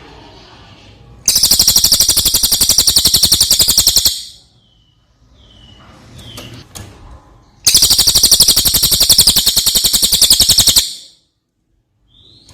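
Brown cililin singing: two loud, very rapid rattling trills of about three seconds each, with short single whistled notes in the gaps.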